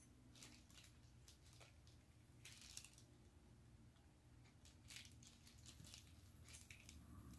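Near silence, broken by a few faint rustles and small clicks from handling the plastic monoculars and a small plastic pouch.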